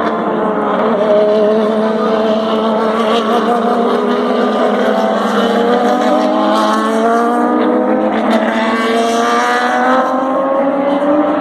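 A pack of Turismo Carretera race cars running through a corner. Several engines overlap, their notes rising and falling in pitch as they brake and accelerate.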